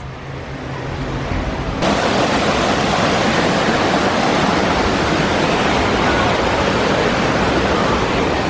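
Steady rushing of falling water, a loud even roar that cuts in suddenly about two seconds in.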